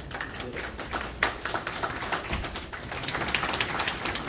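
Small audience clapping: many separate hand claps running on unevenly, with a brief dip about three seconds in.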